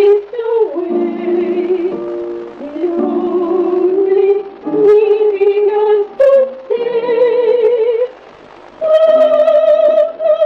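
Two women singing a song together, with long held notes in wavering vibrato and a short pause between phrases about eight seconds in. The sound is muffled and thin, as from an old 8mm film soundtrack.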